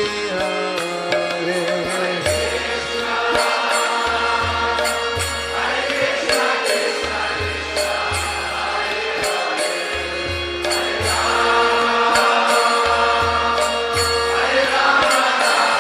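Devotional kirtan: a group of voices chanting a mantra over instruments, with a steady low beat about once a second.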